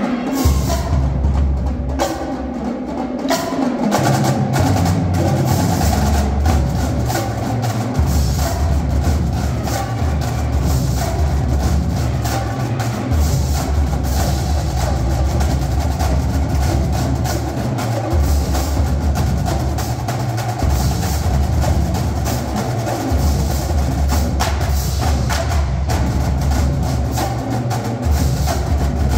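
Marching drumline playing: snare drums, tenor drums, bass drums and cymbals in fast, dense rhythmic patterns. A deep sustained bass runs underneath from about four seconds in, with short breaks.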